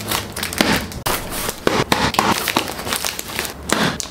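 A small cardboard box being opened and handled: irregular crinkling, crackling and tearing of the packaging.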